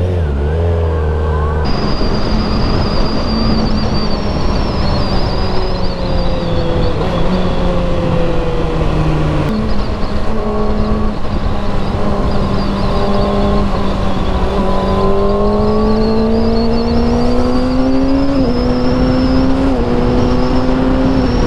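Kawasaki ZX-6R's inline-four running through a full-system aftermarket exhaust while riding, its pitch climbing slowly under throttle and stepping sharply several times at gear changes, once up about nine seconds in and twice down near the end.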